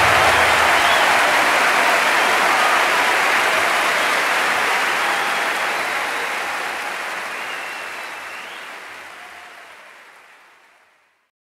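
A large theatre audience applauding, a dense even mass of clapping that fades out gradually over the last five seconds.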